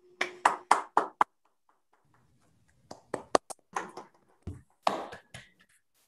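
Scattered hand claps from a few people over a video call: a quick run of about five claps in the first second, then irregular claps in the second half.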